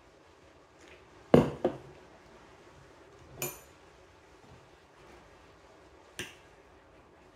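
Tableware sounds on a wooden table: a loud double knock about a second and a half in as a wine glass is set down, then a ringing clink of a metal spoon, and near the end a sharp click of the spoon against the ceramic bowl.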